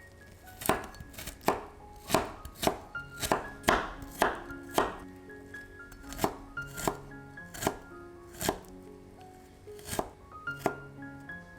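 Knife chopping food on a cutting board in quick, irregular strokes, with a couple of short pauses. Soft background music with gentle mallet-like notes plays underneath.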